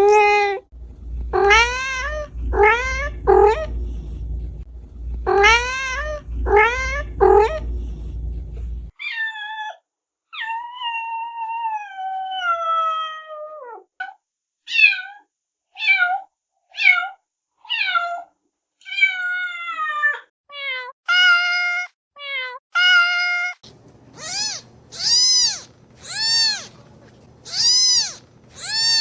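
Domestic cats meowing, several different cats in turn. The first gives short upswept meows over a low rumble. About ten seconds in, another gives long drawn-out meows that fall in pitch, then quicker short ones. Near the end, a cat gives a steady string of short meows, about one a second, each rising and falling.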